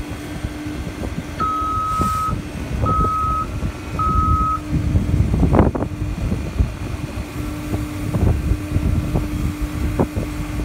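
Heavy construction machinery's diesel engine running with a steady low hum, and about one and a half seconds in a back-up alarm sounds three beeps about a second apart. A sharp knock is heard about halfway through, with a few fainter clicks later.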